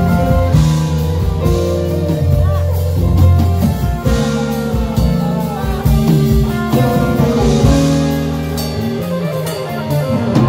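A band playing through a song: sustained keyboard chords, electric guitar, bass and drums with cymbal washes, and a singing voice over it. The deep bass thins out near the end.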